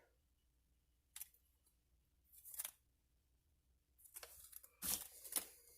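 Faint, scattered handling sounds of lock picks and their packaging: a single click about a second in, a brief rustle, then a cluster of short rustles and clicks near the end.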